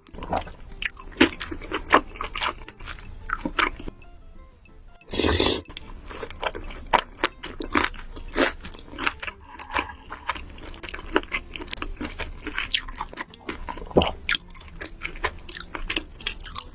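Close-miked eating sounds of someone chewing creamy pasta: many quick wet mouth clicks, with a louder noisy burst about five seconds in, over background music.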